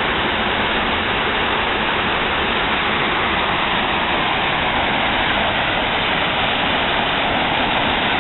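Loud, steady rush of water from a waterfall and the creek below it.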